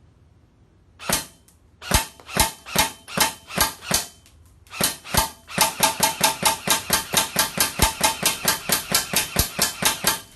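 Rossi Neptune M4 electric airsoft rifle with an electronic trigger, fired in semi-automatic: a single shot about a second in, a string of shots at two or three a second, then, after a short pause, rapid trigger pulls at about five shots a second.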